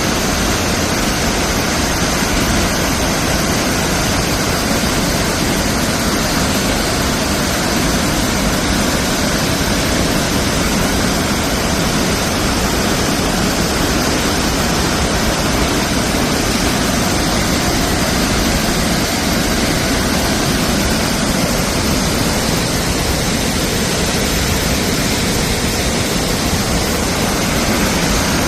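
Waterfall pouring steadily: an even, loud rush of falling water with no change throughout.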